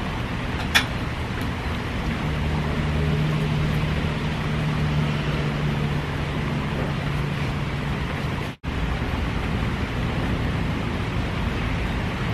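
Steady hiss of rain falling, with a low hum running through the middle several seconds and one sharp click about a second in.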